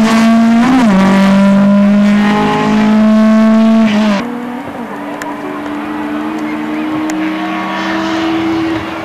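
Rally car engine under hard acceleration, its pitch climbing and then dropping sharply at a gear change about a second in before climbing again. After an abrupt cut about four seconds in, a quieter rally car engine pulls steadily, its pitch rising slowly.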